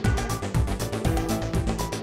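Background music with a steady beat, a bass line and held melody notes.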